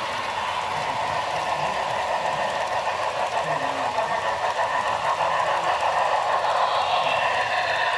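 HO-scale model freight train running on the layout track: a steady rolling noise of wheels on rail that grows a little louder as the train passes.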